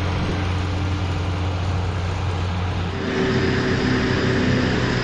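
Steady mechanical hum with a low drone and a few steady tones; about three seconds in it changes to a different, slightly louder hum with higher tones.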